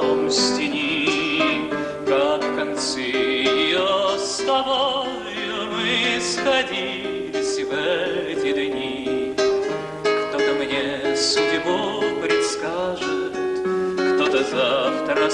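A Russian Gypsy romance: a man singing with vibrato over acoustic guitar accompaniment.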